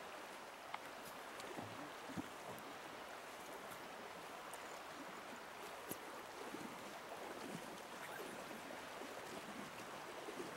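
Steady rush of a shallow river running over a gravel bar, with a few faint clicks.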